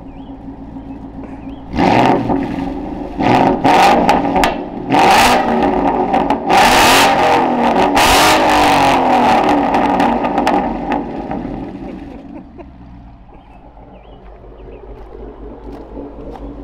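2015 Ford Mustang GT's 5.0 Coyote V8 through a freshly installed Corsa Xtreme cat-back exhaust, cold after its first start. It idles, then is blipped several times from about two seconds in, held up high for a few seconds and let fall back to idle. The revs are loud, a V8 screaming.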